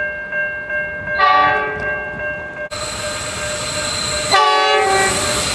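Train horns sounding in a quick series of edited clips. A steady horn chord opens, a louder horn blast comes about a second in, then a harsher, noisier passage follows with another horn blast near the end. Each clip cuts off abruptly.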